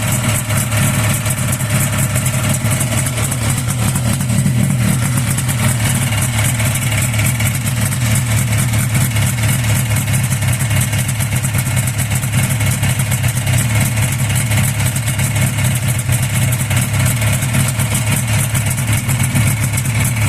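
Buran Leader snowmobile's two-stroke twin engine idling steadily with a knock in it, which the owners put down to the cylinders (crankshaft or piston) rather than the cooling fan bearing.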